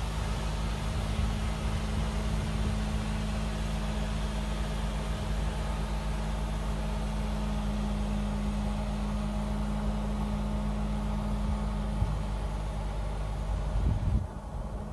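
Gravel dump truck's diesel engine running steadily while the pup wagon's dump box is raised. The sound changes about twelve seconds in and drops off sharply near the end.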